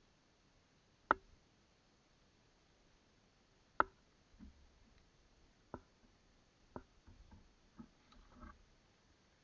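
A series of sharp snips, spaced irregularly about a second or two apart, with the loudest two near the start: branches being cut with a hand pruning tool during tree trimming.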